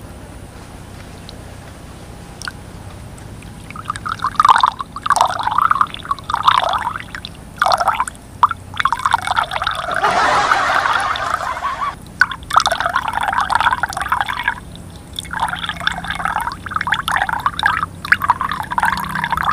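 A stream of liquid splashing into a glass mug as it fills. It comes in spurts from about four seconds in, with a longer unbroken run in the middle.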